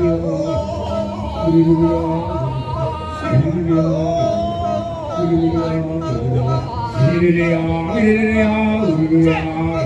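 Kecak male chorus singing a cappella: held, chanted notes that step up and down in a repeating phrase.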